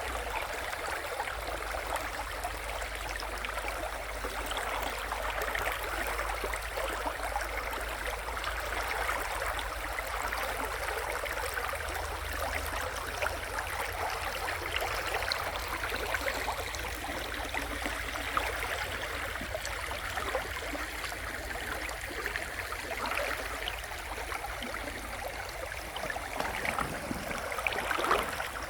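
Shallow river running over its bed: a steady, even rush and babble of flowing water.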